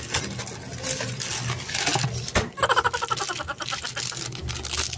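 Small plastic accessory bags and a paper box being handled, crinkling and rustling, with a sharp click about two and a half seconds in followed by a quick run of rattling clicks.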